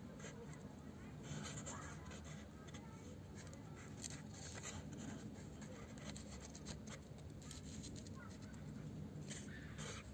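Faint clicks, taps and rustles of small parts and tools being handled over a steady low hum.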